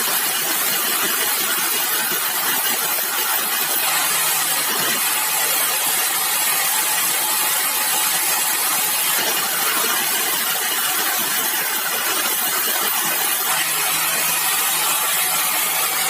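Sawmill machinery running steadily: an even, hissing noise strong in the high pitches over a faint low hum, with no break or change in level.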